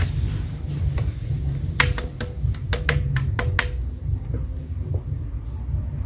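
A steel ladle clinks sharply against a metal mixing bowl and a cast-iron mould a handful of times in quick succession in the middle, with fainter taps after, as rice-flour batter sizzles faintly on the hot mould. A steady low rumble runs underneath.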